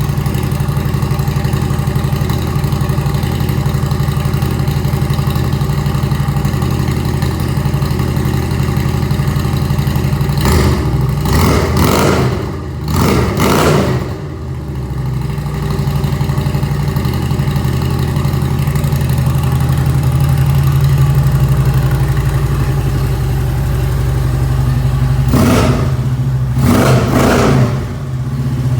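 Harley-Davidson Twin Cam 103 V-twin running through Cobra Power Port dual exhaust with slip-on mufflers, idling after a cold start. It is blipped three times about ten seconds in and three more times near the end, falling back to idle after each group.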